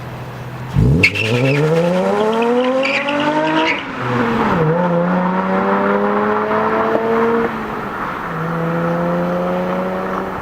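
Nissan 350Z's 3.5-litre V6 engine idling, then revving up about a second in, its pitch rising for a few seconds. It drops briefly and then holds at a steady higher speed, with a short dip again shortly before the end.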